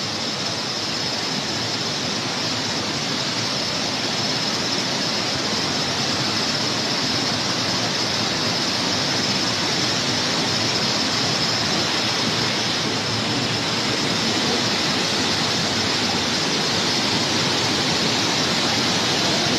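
Water pouring through the two opened spillway gates of the overfilled Kulekhani Dam: a steady, heavy rush of water that grows slightly louder.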